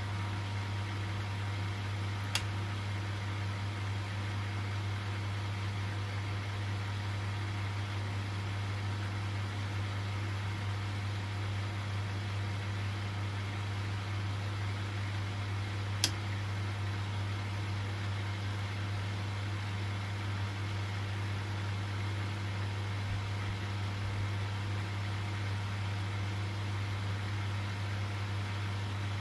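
AutoChlor RP7 salt-water chlorinator control unit running with a steady low electrical hum and the whir of its small cooling fan. Two sharp clicks, one about two seconds in and one about sixteen seconds in.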